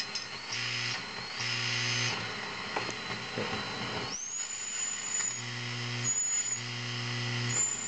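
High-gain tube amp squealing with feedback: a thin, steady, high whistle that jumps up to a higher pitch about four seconds in and breaks off briefly twice, over an on-and-off mains hum. The squeal is feedback from the power tubes back into the preamp tubes, carried through the glass envelopes and across the chassis.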